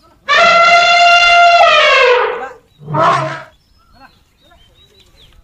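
Asian elephant bull trumpeting: one long, loud, brassy blast of about two seconds that drops in pitch as it ends, then a shorter second call.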